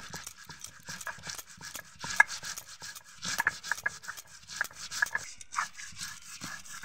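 Stone roller of a shil-nora grinding mustard seeds, poppy seeds and dry coconut on the flat grinding stone: a rapid, irregular gritty scraping and crunching. Short high squeaks come between the strokes.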